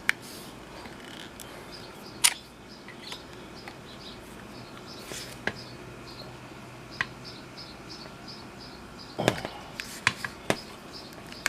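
Scattered sharp clicks and knocks of hand tools on metal, a few close together near the end, as the handlebar fittings are worked loose. Under them, a faint, regular high chirping, about three a second, like an insect.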